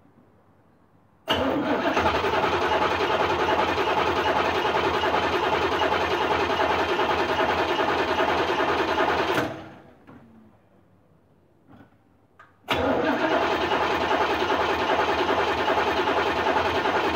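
Starter motor cranking a 1986 Corvette's L98 5.7-litre V8 for about eight seconds, stopping, then cranking again about three seconds later. This is the first start attempt after all eight fuel injectors were replaced.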